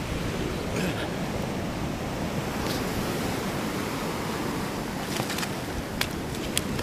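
Surf washing in over the sand in a steady rush, with a few short sharp clicks near the end.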